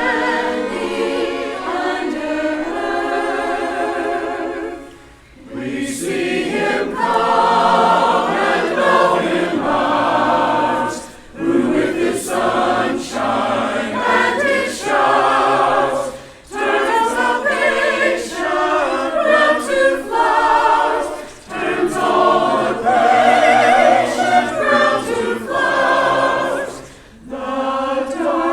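Church choir singing a slow Christmas carol in parts, its phrases separated by brief pauses every five or six seconds.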